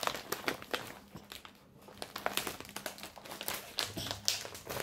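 Packaging crinkling and rustling as it is handled, with a run of irregular sharp crackles and clicks.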